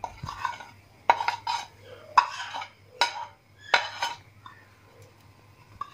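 Steel spoon clinking and scraping against a ceramic plate and steel mixing bowl as spices are scraped off into raw chicken, with about half a dozen sharp clinks in the first four seconds, then quieter.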